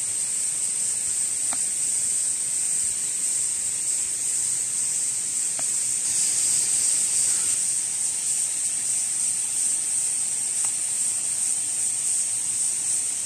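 Summer chorus of cicadas: a steady, shrill, high-pitched drone that holds at an even level throughout.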